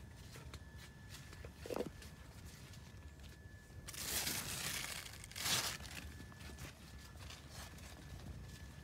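Cucumber leaves and vines rustling as a hand pushes in among them. There are two bursts, one about four seconds in lasting about a second, and a shorter one about a second later.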